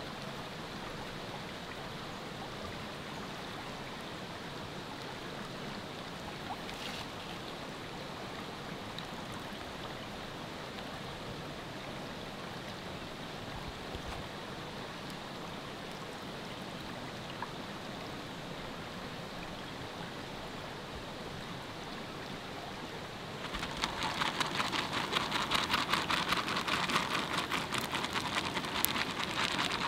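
A river flowing steadily. About 23 seconds in, hot cooking oil starts sizzling and crackling loudly, as when chicken is frying.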